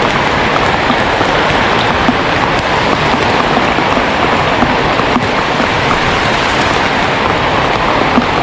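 Heavy rain falling steadily: a dense, even hiss with scattered louder drops.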